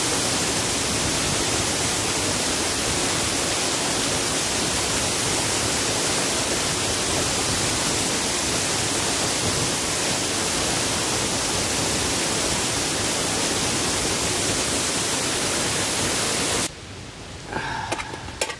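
Shallow mountain stream running over stones: a steady rushing of water. About seventeen seconds in it cuts off to a much quieter background with a brief faint tone and a couple of clicks.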